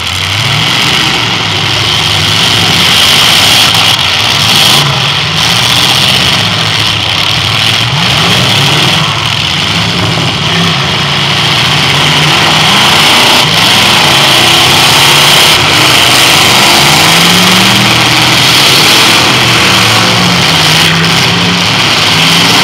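Several demolition derby cars' engines running hard and revving at once, their pitch rising and falling continually, loud.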